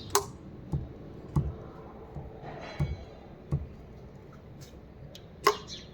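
A series of six clicks and dull knocks at uneven intervals, the sharpest just after the start and near the end.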